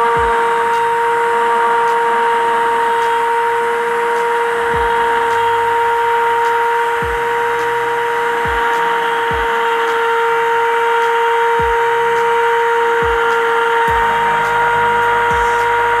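Mini grinder (small rotary tool) running at a steady high speed while cutting through PVC pipe: a steady high whine with a grinding hiss.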